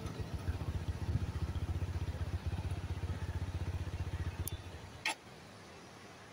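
Motorcycle engine running at low revs with an even run of exhaust pulses. The pulses fade and cut out about five seconds in, with one short sharp click as it stops.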